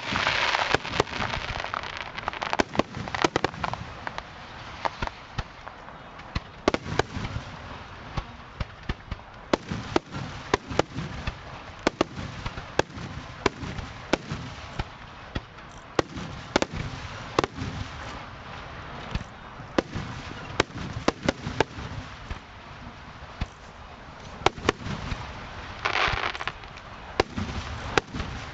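Aerial firework shells bursting in rapid, irregular succession, a string of sharp bangs heard at close range, with dense crackling bursts near the start and again near the end.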